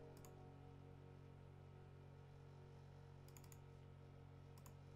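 Near silence with a steady low hum and a few faint computer clicks: one just after the start, a quick run of three or four about three and a half seconds in, and two more near the end.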